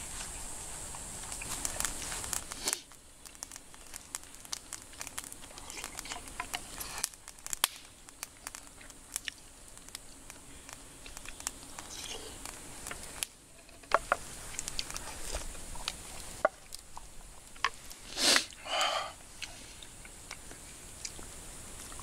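Wooden spoon scraping and knocking against a wooden bowl while eating, giving many small scattered clicks. A steady hiss stops a few seconds in, and near the end come two short louder sounds.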